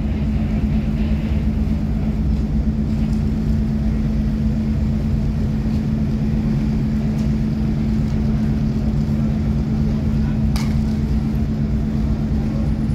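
Steady low drone of ship diesel engines from a large passenger ship berthing with a tug at its bow, with one strong constant hum and a rumble beneath it. A single sharp click comes about ten seconds in.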